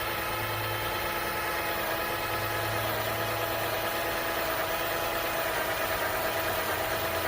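Avid Power ACD316N 20V cordless drill boring a hole through a pressure-treated 2x4, its motor whining steadily under load, dipping slightly in pitch in the middle and picking up again near the end as the bit breaks through.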